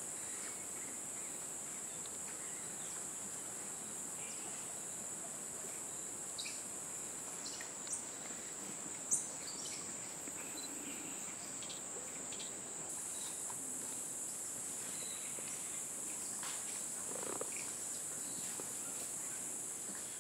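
Steady high-pitched drone of a rainforest insect chorus, with a few brief sharp calls near the middle, the loudest about halfway through.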